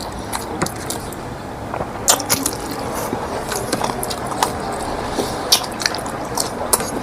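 Close-miked eating: wet chewing and lip smacks with irregular sharp mouth clicks, thickest about two seconds in and again near the middle.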